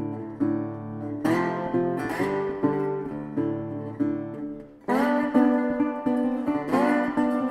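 Background music: strummed acoustic guitar chords, pausing briefly about five seconds in before a new chord pattern starts.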